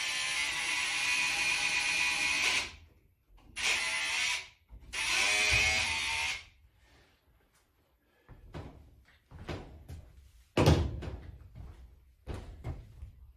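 Wooden mirror frame scraping against the timber wall as it is shifted into place, in three long scrapes. These are followed by scattered knocks and one loud thump as it is settled.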